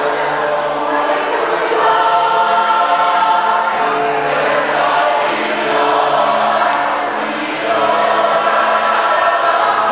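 Choir singing in several parts, holding long notes.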